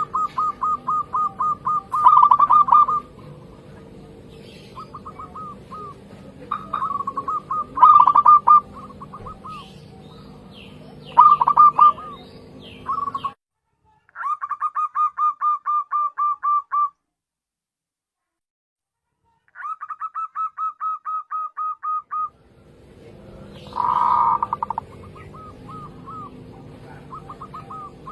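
Zebra doves (perkutut) calling: runs of quick staccato coo notes, about five a second, repeated in bursts. Thin chirps of another small bird come in around the middle, and the sound drops to dead silence for a few seconds between two call runs.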